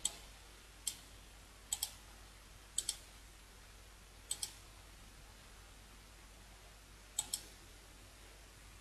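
Computer mouse clicks: two single clicks, then four quick double clicks spread over several seconds, against faint steady hiss.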